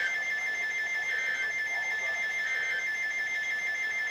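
Electronic emergency alert tone: a high, rapidly pulsing two-tone alarm that holds steady.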